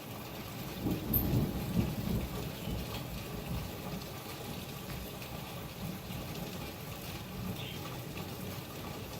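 Heavy rain falling steadily in a gusting storm wind, with a louder low rumble about a second in that settles back into the steady rain noise.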